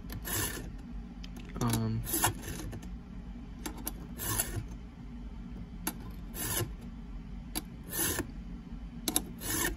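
Round chainsaw file rasping across the cutter teeth of a Stihl chainsaw chain, in about seven separate forward strokes a second or two apart, the file lifted between strokes.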